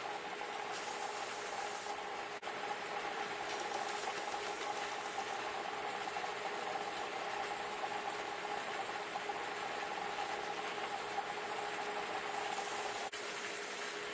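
Shopsmith belt sander running steadily with a whine in two tones, as the edges of a small mahogany box are pressed lightly against its worn 120-grit belt and the wood rubs on the abrasive.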